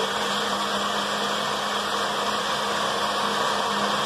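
Magic Bullet personal blender running steadily, its motor spinning a watery mix of water and shake powder with no ice in it yet.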